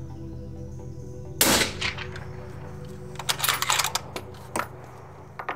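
A single rifle shot with a short echo about a second and a half in, followed by a quick run of sharp metallic clicks and two more clicks near the end, over steady background music.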